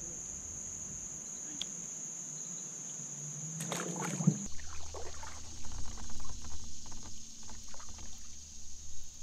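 A steady high-pitched drone of insects. About four seconds in it gives way to kayak paddling: a double-bladed paddle dipping and splashing, water dripping and trickling off the blades, with the insects still droning behind.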